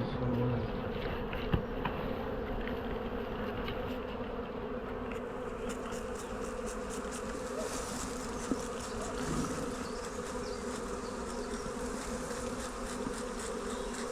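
A swarm of honey bees buzzing: a steady hum of many wings with no change in pitch.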